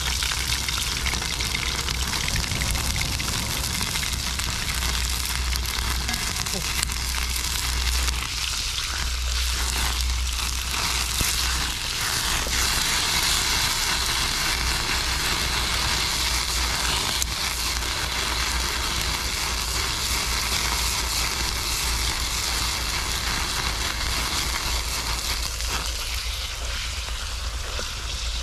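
Sliced pork sizzling steadily in hot oil in a steel wok over a wood fire.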